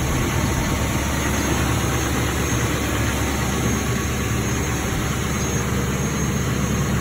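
A pickup's diesel engine idling steadily, a constant low running sound with no change in speed.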